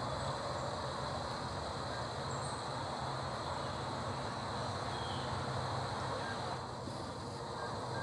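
Steady outdoor background rumble and hiss, like distant traffic, with a few faint, brief, high chirps over it.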